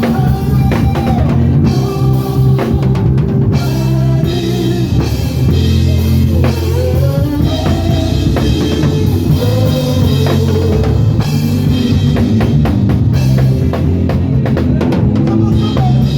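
Live gospel band music: a drum kit with kick and snare under a heavy bass line, with a melodic lead over it.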